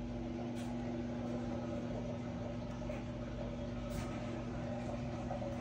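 A steady low hum with a constant pitched tone, with a couple of faint handling clicks.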